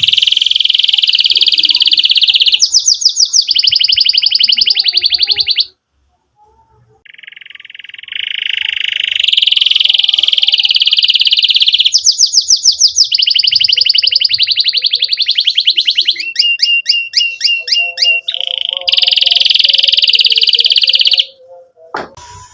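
Domestic canary singing loudly in long continuous phrases with rapid trills of repeated chirps, breaking off briefly about a quarter of the way through and again near the end.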